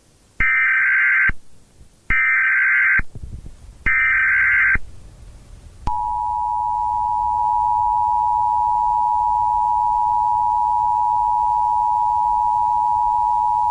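Emergency Alert System header: three one-second bursts of warbling SAME digital data, evenly spaced, then the EAS two-tone attention signal (853 and 960 Hz together) starting about six seconds in and held steady.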